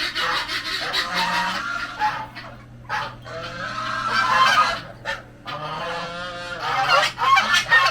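Several domestic geese honking, their calls overlapping, with a couple of brief lulls.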